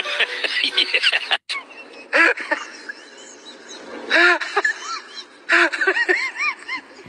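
A person's voice in short rising-and-falling exclamations, in three bursts. Before them, a brief stretch of music and talk cuts off suddenly about a second and a half in.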